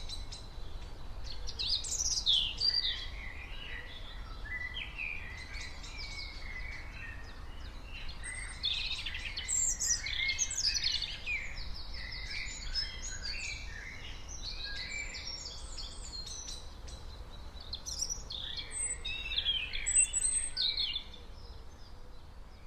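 Several small birds chirping and singing in quick, overlapping phrases, busiest about two seconds in, around the middle and again near the end, over a steady low rumble.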